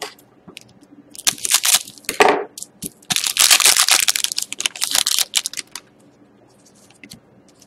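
A hockey card pack's wrapper being torn open and crinkled, in noisy bursts about a second in and again from about three to five seconds in, with lighter rustling after.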